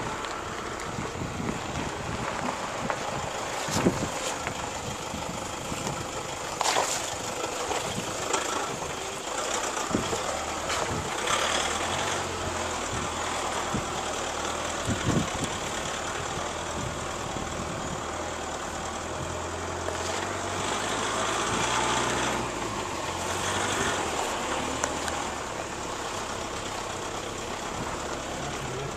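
A four-wheel-drive vehicle's engine running under a low, steady hum as it crawls over loose rock and gravel, heard from inside the vehicle, with the crunch and rumble of tyres on stones. Occasional sharp knocks come from the wheels and suspension striking rocks.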